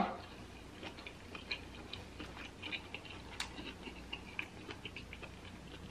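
Faint, irregular wet clicks and smacks of close-miked chewing on a mouthful of colossal prawn.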